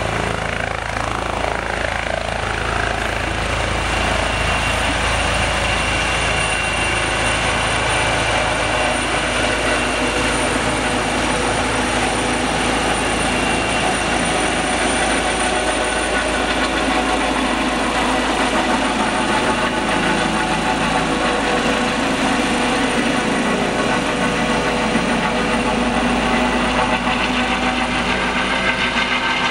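Trauma helicopter lifting off and climbing away, its turbine and rotor running loud and steady, with a high turbine whine held throughout.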